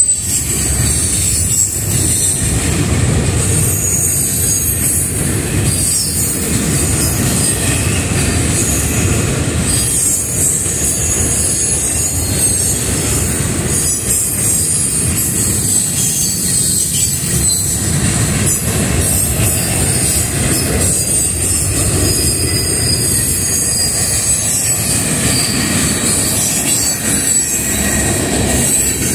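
Freight cars of a mixed freight train rolling past at speed: a continuous steel-wheel rumble on the rails, with a steady high-pitched whine from the wheels over it.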